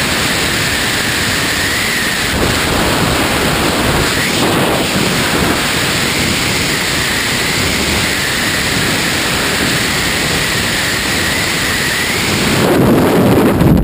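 Freefall wind rushing over the microphone of a tandem skydiver's wrist-mounted camera: a steady, loud rush of noise with a faint wavering whistle above it. Near the end the rush turns louder and lower.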